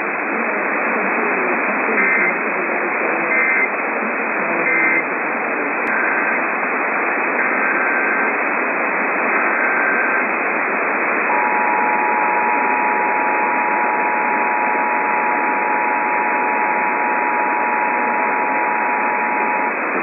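Emergency Alert System tones over heavy AM-radio static. First come three short screeching data bursts, the end-of-message code. Then, after a click, three longer header data bursts. Then the two-tone attention signal starts about eleven seconds in and holds steady for about eight and a half seconds.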